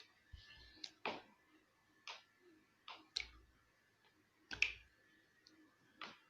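Slime being squeezed and poked, giving irregular sharp clicking pops, about eight of them, the loudest about four and a half seconds in.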